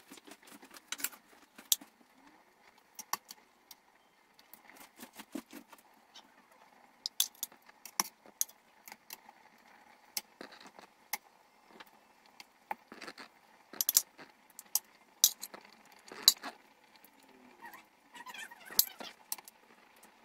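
Metal tongs clicking and clinking against the stainless steel inner pot of an electric pressure cooker as pieces of beef short rib are set into the broth. Under the clicks runs a faint steady bubbling from the boiling broth.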